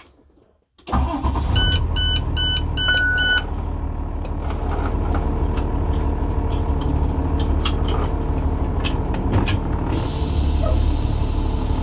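Cummins diesel engine of a 2016 International school bus starting about a second in and settling into a steady idle. Shortly after it catches, a run of five warning beeps sounds, the last one held longer. A few light clicks follow, and a faint steady hiss comes in near the end.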